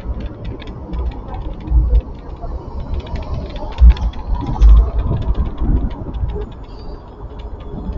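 Wind buffeting the microphone of a moving scooter, with road rumble and a scatter of small rattling clicks. The loudest gusts come about four and five seconds in.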